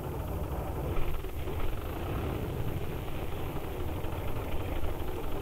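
A large engine running steadily: a low rumble with a faint wavering whine above it, and a few light knocks about a second in.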